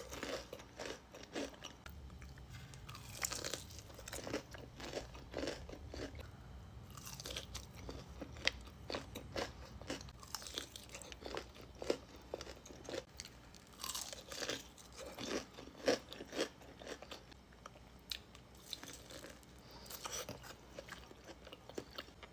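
Crispy fried chicken wings being bitten and chewed, with repeated crisp crunches coming in spells of chewing.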